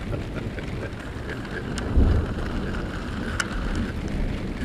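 Steady rain during a thunderstorm, with a low rumble underneath and a louder low thump about two seconds in, plus a couple of sharp drip ticks.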